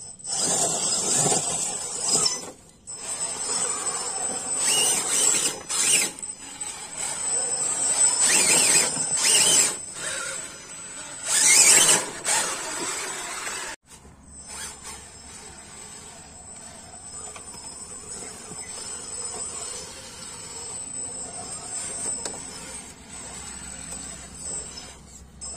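Electric RC rock-crawler trucks working over rocks and dry leaves, their motors whining in changing swells that are loudest in the first half. Just under halfway through the sound cuts to a quieter, steadier bed. A thin, steady high insect buzz runs underneath throughout.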